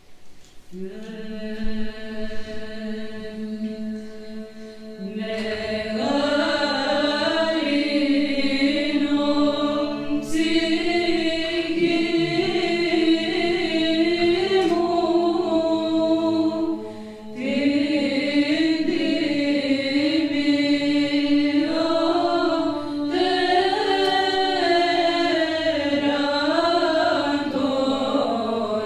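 A choir of Orthodox nuns chanting a cappella. A single held low drone note starts first, then the melody voices join above it a few seconds in. There is a short break for breath about two thirds of the way through before the chant carries on.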